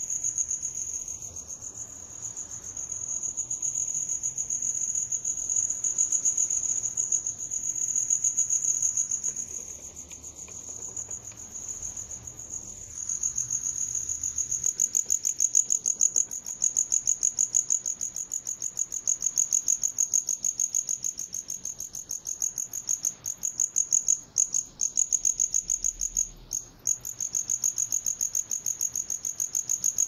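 Field cricket chirping: a continuous high-pitched trill of rapid pulses, its loudness swelling and fading as it goes, with the pulses standing out more sharply in the second half.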